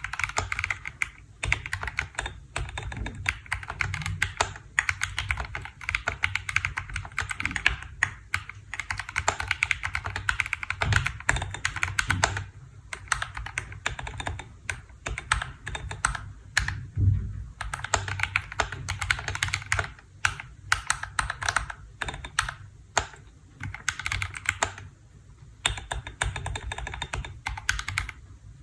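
Continuous fast typing on a KBDfans D65 mechanical keyboard: a dense, uneven run of key clacks, with a couple of brief pauses.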